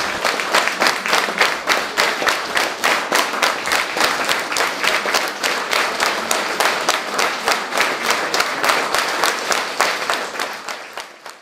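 Concert audience applauding, the claps falling together in a steady rhythm of about four a second, fading away near the end.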